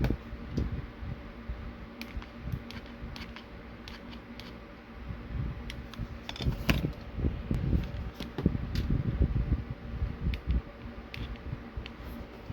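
Steady fan-like hum with scattered clicks and low knocks from small plastic toy parts being handled on the bench, busiest about halfway through.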